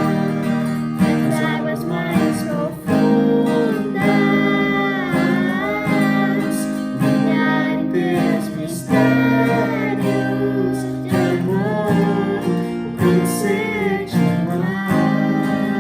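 Worship song: strummed acoustic guitar with a voice singing a gliding melody over it.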